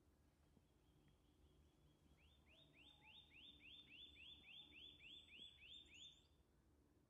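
A small songbird singing faintly: a run of about fourteen quick upslurred whistled notes, about three or four a second, that stops after about four seconds.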